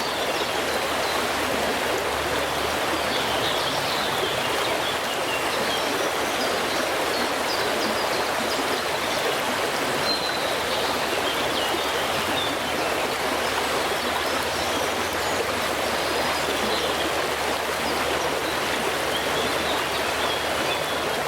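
A small stream babbling steadily over its bed, with a few birds chirping faintly now and then.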